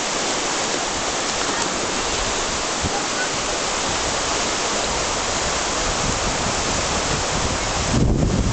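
River rapids rushing steadily, a constant roar of whitewater. Near the end a brief low buffeting becomes the loudest thing.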